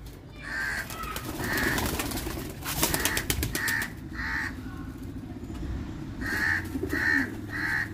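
Domestic pigeons cooing in their loft at feeding time, while a bird gives about eight short, clear calls in quick sets, with some pecking or scattering clicks around the middle.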